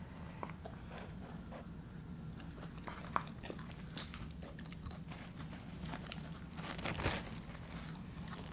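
Crunchy tortilla chips being bitten and chewed, a scatter of short crunches with the loudest about seven seconds in, over a low steady hum.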